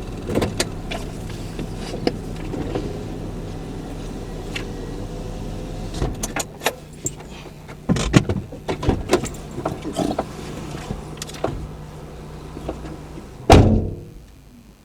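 Car engine running steadily, with scattered clicks and knocks, then one loud thump near the end, after which the engine sound stops.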